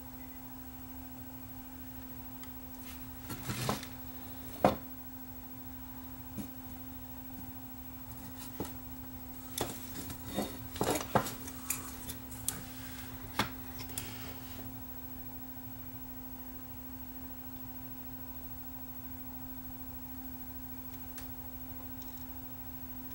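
A steady low hum with scattered light clicks and clinks of small hard objects being handled, a few about four seconds in and a denser run in the middle.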